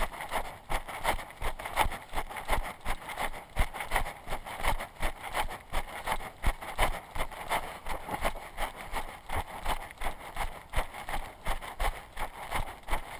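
A runner's footfalls on a dirt trail, a steady rhythm of about three steps a second, heard through a body-worn camera that jolts with each stride.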